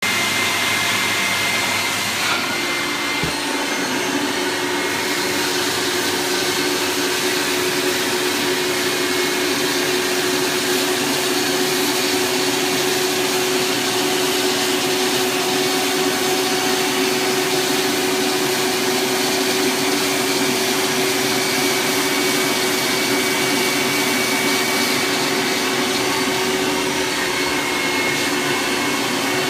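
A carpet-cleaning extraction machine runs as its floor wand is passed over the carpet, the vacuum pulling the water back out of the pile. It makes a steady, loud suction rush with a steady hum under it.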